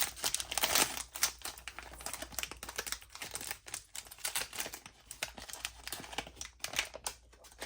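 Plastic wrapper of a trading-card pack being torn open and crinkled by hand: a dense run of rapid crackling clicks that dies away near the end.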